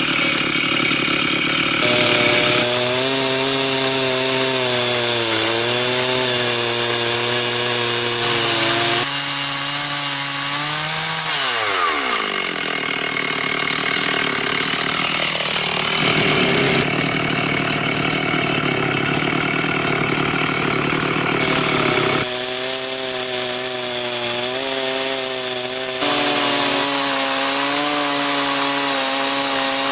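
Chainsaw ripping lengthwise through a red oak log in a mini chainsaw mill, its engine held under load with the pitch wavering as it cuts. About eleven seconds in the engine note drops steeply, then the saw runs on cutting.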